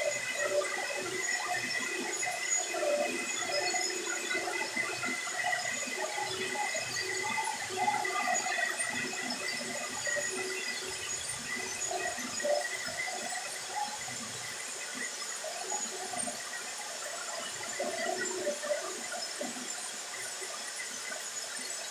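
Electric soap extruder running: a steady motor whine over a continuous rushing noise.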